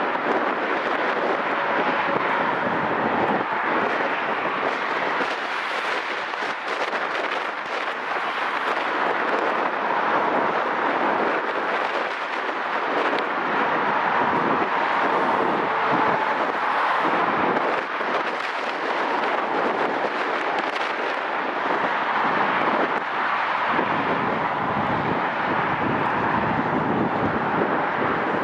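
Jet airliner engines heard as a steady rushing noise with a faint whine as the plane comes in to land.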